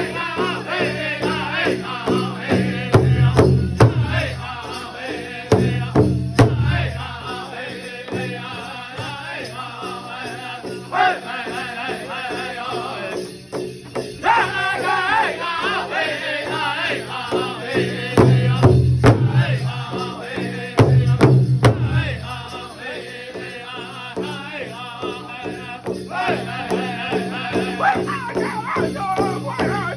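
Pow wow drum group singing in chorus over a steady, evenly struck big drum, with a few louder low surges along the way.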